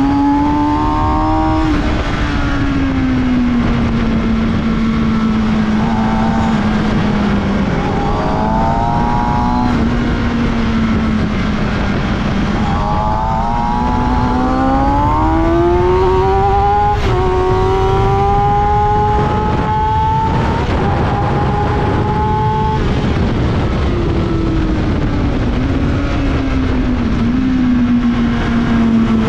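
Kawasaki ZX-6R 636's inline-four engine pulling on a race track, heard onboard over wind noise. The revs rise and fall through the corners, climbing for several seconds in the middle and easing off again later.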